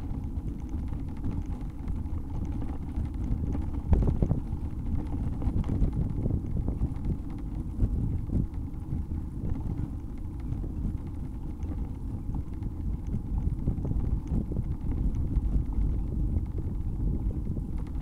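Wind buffeting the microphone of a camera riding along on a moving bicycle, over the low rumble of the bike rolling on the street. A few short knocks from bumps in the road, the loudest about four seconds in.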